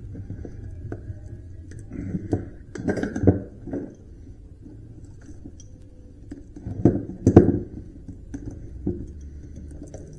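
Copper windings being pulled and pried out of a cut electric motor stator: metal clinks, scrapes and knocks, loudest in two clusters about three and seven seconds in.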